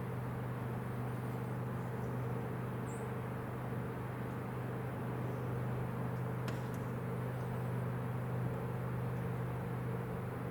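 Tugboat diesel engine running steadily, a low even hum with no change in speed. A faint high chirp comes about three seconds in.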